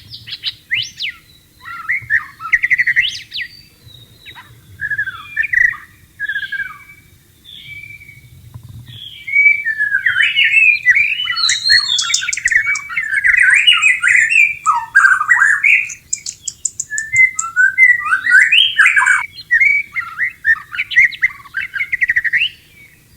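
White-rumped shama in breeding condition singing a fast, varied run of whistled and chattering phrases in bursts with short gaps, growing louder and busier about nine seconds in, with a rapid high rattle over parts of it.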